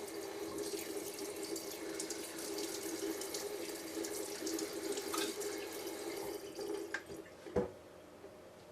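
Kitchen tap running hot water into a sink over a plastic popsicle mold to loosen a stuck frozen popsicle, a steady splashing hiss with a low hum from the tap. The water stops about seven seconds in, followed by a single knock.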